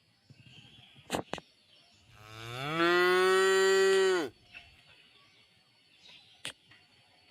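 A cow mooing once, a single call of about two seconds that rises in pitch and then holds steady before cutting off. A few sharp clicks come shortly before and after it.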